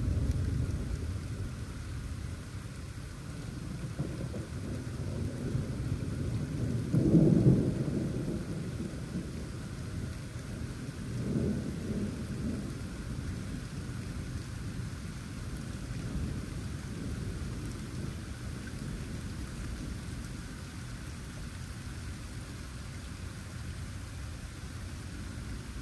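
Steady rain with rolling thunder. A low rumble fades away at the start, a louder roll of thunder comes about seven seconds in, and a smaller one follows about eleven seconds in.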